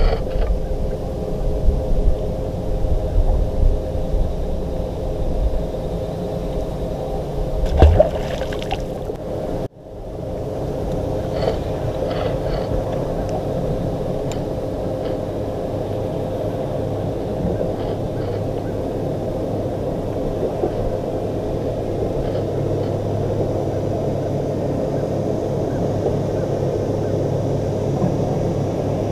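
Steady hum of a bass boat's electric trolling motor, with one thump about eight seconds in and a brief cut-out a couple of seconds later before the hum resumes.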